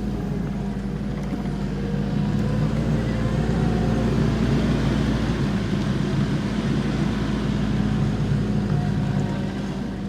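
Kubota SVL90-2 compact track loader's diesel engine running steadily while digging with the toothed bucket, a little louder a couple of seconds in.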